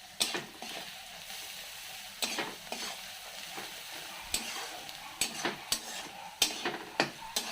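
Onions and chillies frying in oil in a kadai, sizzling as they are stirred, with a dozen or so sharp, irregular knocks of the stirring utensil against the pan.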